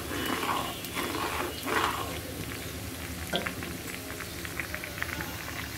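Sliced onions and dried red chillies deep-frying in hot oil in a karahi, a steady sizzle with fine crackling as they turn into beresta. A spatula stirs through them a few times in the first two seconds.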